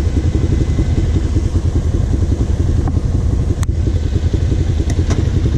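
Quad bike (ATV) engines idling close by, a steady pulsing low rumble, with one sharp click about three and a half seconds in.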